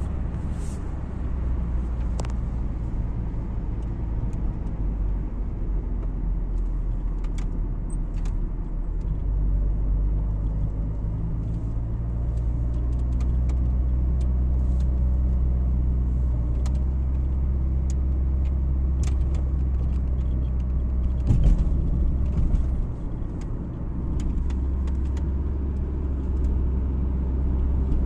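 Car driving on an open road, heard from inside the cabin: a steady low rumble of engine and tyres. Scattered faint clicks run through it, and there is a brief louder jolt a little past two thirds of the way through.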